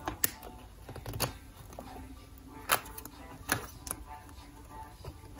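Photocards being slid into the pockets of plastic binder sleeves: a handful of sharp plastic clicks and rustles, spaced irregularly.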